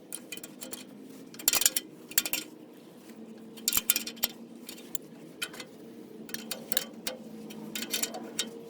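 Steel hydraulic tubes and their fittings clinking and knocking against metal as they are handled and set in place, with irregular sharp clinks every second or so over a faint steady hum.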